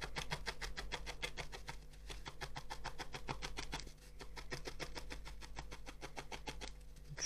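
Felting needle stabbing repeatedly into a small wool piece, shaping the felted dog's head: a fast, even run of soft pokes, about seven a second, with a brief pause about four seconds in.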